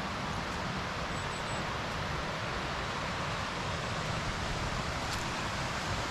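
Steady rushing of a mountain creek, an even hiss with no breaks. Three faint, short high chirps come about a second in.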